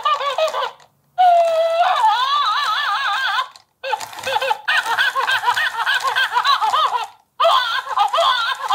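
Battery-powered plush monkey toy playing its recorded monkey cries through its small speaker, set off by having its banana taken away. The calls wobble rapidly up and down in pitch like cackling, in stretches of two to three seconds broken by short silences.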